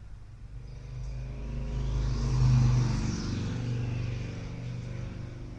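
A motor vehicle's engine sound that swells to its loudest about two and a half seconds in and then eases, over a steady low hum.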